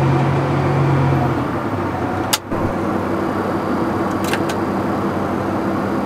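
A John Deere tractor's engine running steadily, heard from inside the cab as a constant drone. A strong low note drops away about a second in, and there is a brief dip and a couple of faint clicks midway.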